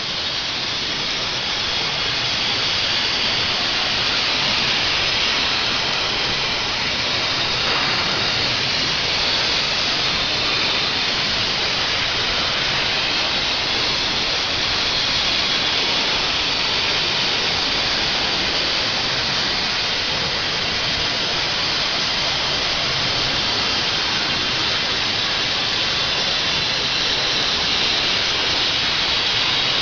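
CNC plasma cutter torch cutting through metal: a steady, loud, unbroken hiss.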